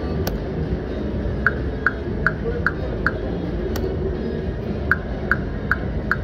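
Video slot machine playing two spins: each begins with a sharp click, then five short tones about 0.4 s apart as the five reels stop one after another. Steady casino background noise runs underneath.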